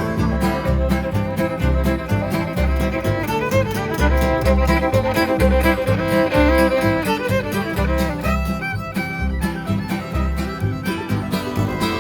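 A local string band playing bluegrass-style mountain music: a fiddle carries the tune over plucked strings, with a steady bass beat about twice a second.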